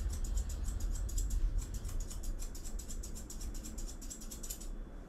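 Grooming scissors snipping rapidly through a cavoodle's coat, about seven snips a second, with a short pause about a second and a half in and stopping near the end.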